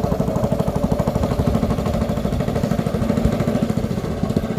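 Small boat's motor running steadily, a fast even chugging.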